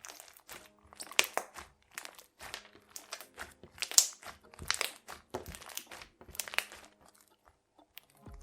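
Crunchy slime packed with little foam beads being squeezed and pressed, giving a run of irregular crackling crunches, about a dozen, the loudest about four seconds in. Faint music plays underneath.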